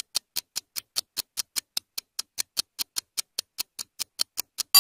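Quiz countdown timer ticking steadily, about five sharp ticks a second, while time runs out for the answer. Right at the very end, a loud electronic bell starts ringing to signal that time is up.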